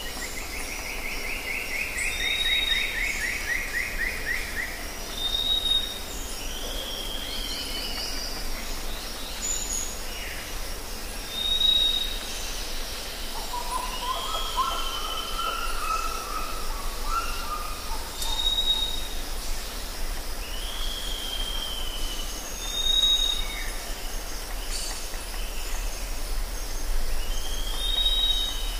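Forest ambience of several birds calling over a steady high hiss. Short whistled notes and arched chirps recur every couple of seconds, with a descending trill near the start and a lower, warbling call about halfway through.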